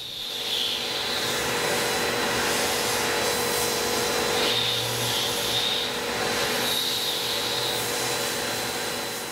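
Tormach 1100 CNC mill spindle running at 7500 rpm while a 3/8-inch four-flute chamfer mill breaks the edges of an aluminum part under flood coolant: a steady hiss and hum with a faint high whine that swells a few times.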